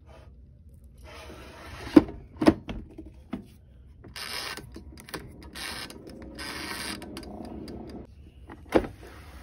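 Plastic air fryer: two sharp knocks as the basket goes in, then the wind-up mechanical timer knob being turned, its gears ratcheting in several short bursts, and one more sharp knock near the end.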